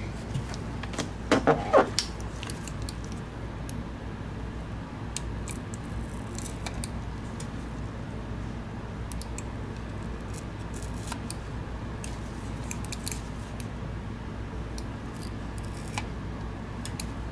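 Small clicks and scrapes of metal tweezers against the plastic underside of a Logitech MX Anywhere 3 mouse as its stick-on feet are pried off, over a steady low hum. A quick cluster of louder knocks comes about a second and a half in.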